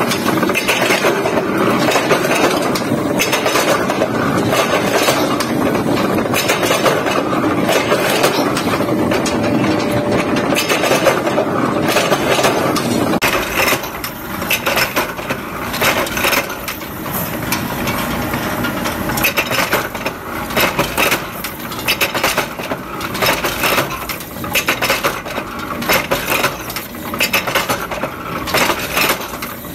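Forging press running as red-hot blanks are fed into its water-cooled die: a dense mechanical clatter that changes abruptly about thirteen seconds in to many separate sharp metal clanks and clinks.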